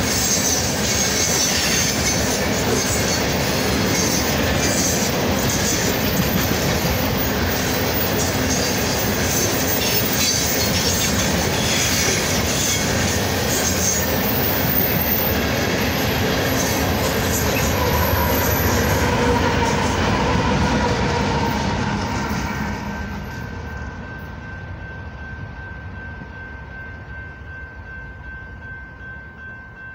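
Empty coal hopper cars of a freight train rolling past, with the steady rumble of wheels on rail and faint high wheel squeal. The noise fades about 22 seconds in as the last cars go by, leaving a much quieter background with a faint steady tone.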